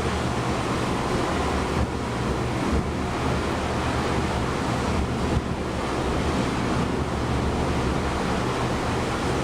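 Steady rush of ocean waves and wind, with wind buffeting the microphone and a low steady hum underneath.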